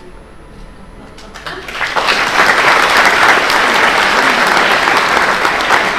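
Audience applauding. The clapping builds up about a second and a half in and then stays loud and steady.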